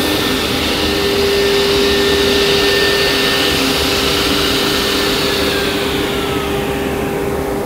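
Martin sliding table saw running with no cut, a steady whine over a rushing hiss. About six seconds in, a higher tone slides downward and the hiss begins to fade as the saw is switched off and starts to spin down.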